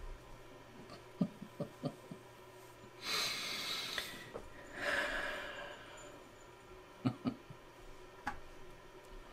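A man breathing heavily close to the microphone: two loud breaths around the middle, the second a longer exhale that trails off, with a few small clicks before and after.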